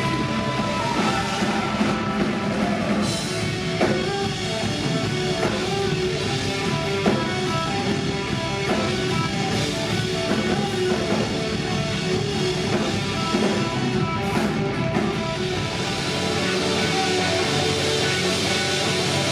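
Live rock band playing, with guitar and a drum kit at a steady loud level.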